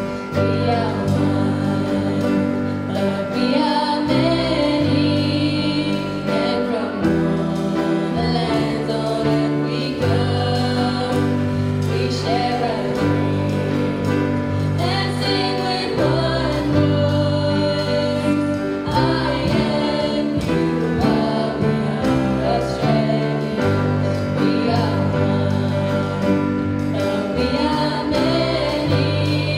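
School choir of girls' and boys' voices singing, with two girls singing lead into handheld microphones, over sustained chords that change every second or two.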